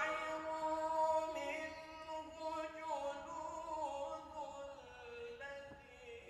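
A man's voice reciting the Qur'an in melodic tilawah style, holding one long melismatic phrase that steps down in pitch and grows softer toward the end.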